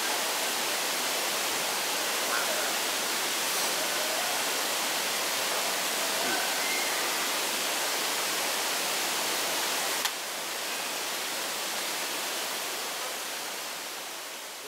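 Steady rushing of a nearby mountain stream, dropping slightly about ten seconds in.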